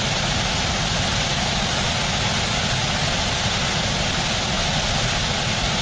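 Steady rushing of whitewater pouring down a small rocky waterfall.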